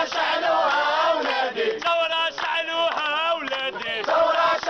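A group of men chanting and shouting slogans together in loud, rhythmic phrases.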